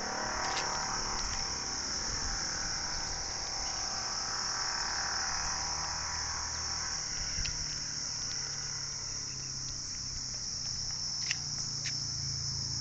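A steady, high-pitched insect chorus, like crickets, running without a break, with a low rumble beneath it and two short sharp sounds near the end.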